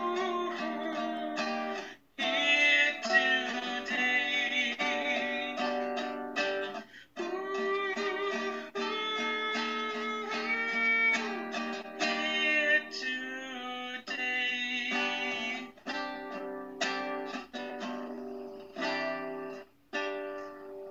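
Man singing while strumming an acoustic guitar, heard over a video call through a tablet's speaker. The playing breaks off briefly about two seconds in and again around seven seconds.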